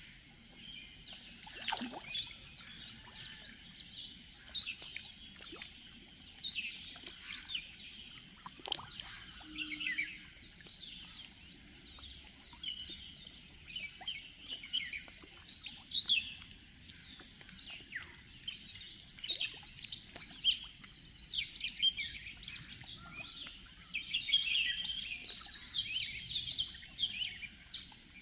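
Many small birds chirping and calling over one another, busiest near the end, over a faint steady background hiss.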